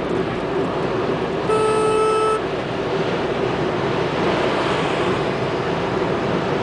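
Steady road and engine noise heard inside a car's cabin at highway speed. A single steady horn blast sounds about a second and a half in and lasts just under a second.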